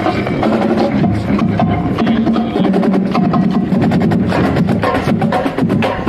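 Marching band playing loud and close: rapid drum strokes from the percussion over sustained low wind notes, picked up by a phone in a band member's shirt pocket.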